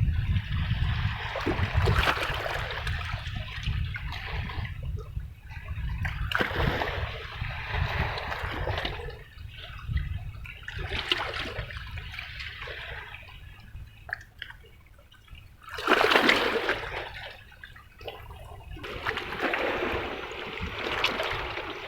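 Sea water washing and splashing against breakwater rocks in surges every few seconds, the biggest about sixteen seconds in, over a steady low rumble.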